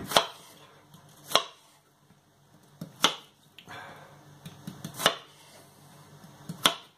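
Kitchen knife coarsely chopping onion on a wooden chopping board: five separate knocks of the blade on the board, one to two seconds apart.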